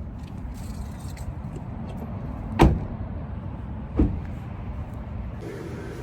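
Two car doors shutting, one about a second and a half after the other, the first the louder, over a steady low rumble.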